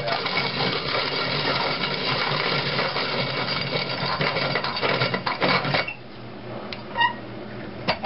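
Antique Arcade No. 3 cast-iron hand-cranked coffee grinder being cranked, its burrs grinding a small handful of coffee beans at a coarse setting. The grinding runs steadily for about six seconds, then stops. A single short ringing clink follows near the end.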